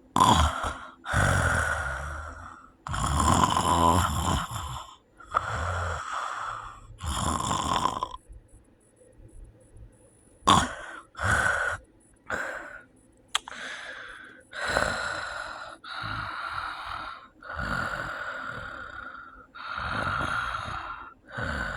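A sleeper snoring loudly and irregularly. There are several harsh, rasping snores in quick succession, then a silent pause of about two seconds, then a sudden loud gasping snore. After that the snores come every second and a half or so. This is snoring with breathing pauses, labelled as sleep apnea.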